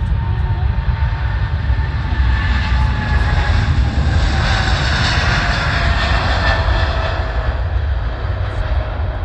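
Jet noise from a Boeing 777-300ER's GE90 turbofans as the airliner passes. The noise swells to a peak about halfway through and then eases, over a deep rumble and a whine that falls slowly in pitch.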